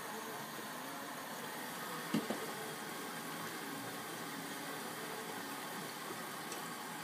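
Bosch Maxx 40 WFC2445 front-loading washing machine running with a steady noise, with a single short knock about two seconds in.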